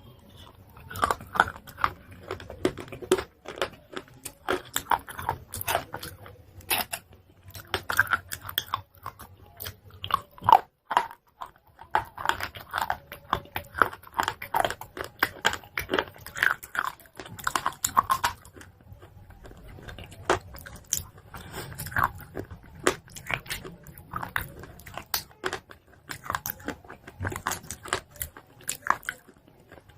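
Close-miked biting and chewing of chalk pieces: a steady run of irregular sharp crunches, several a second, with soft mouth sounds between them.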